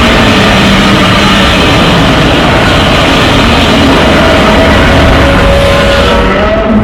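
A loud, sustained, harsh noisy monster sound effect with a faint wavering tone in it. Its top end fades away near the end.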